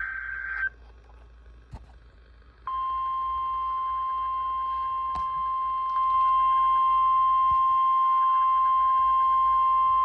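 An Emergency Alert System SAME digital data burst, a short buzzy warble, ends within the first second. After a pause of about two seconds the NOAA Weather Radio warning alarm, a steady single tone of about 1050 Hz, starts and gets louder about six seconds in. It announces that an alert is about to be read.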